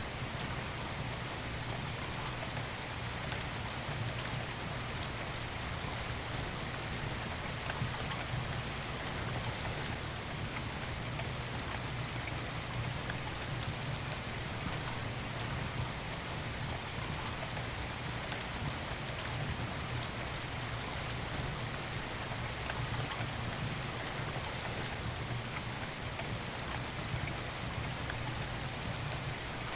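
Steady rain falling, an even unbroken hiss, with a few faint sharp clicks.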